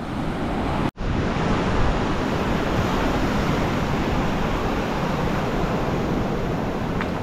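Surf breaking and washing up a sandy beach, a steady rush, with wind buffeting the microphone. The sound drops out for an instant about a second in.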